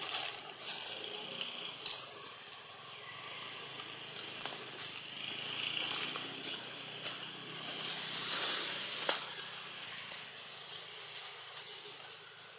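Outdoor ambience: a steady high hiss, with short high-pitched chirps now and then and a few sharp clicks.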